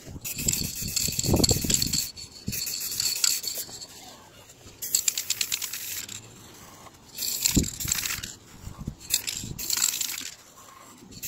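Aerosol can of silver spray paint hissing in several bursts of one to two seconds, with short pauses between.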